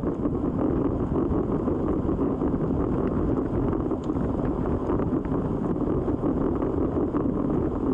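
Steady wind noise rushing over the microphone of a camera carried on a racing bicycle riding fast in a group.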